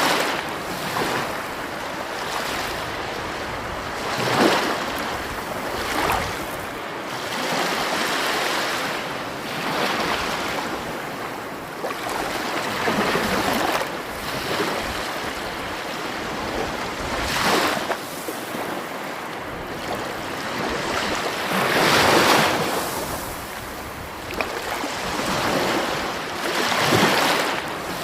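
Sea waves breaking on the shore, a surge of surf every few seconds over a steady wash of water.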